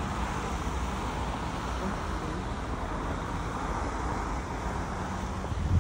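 Steady rumble of distant road traffic mixed with wind noise on the microphone, and a low thump right at the end.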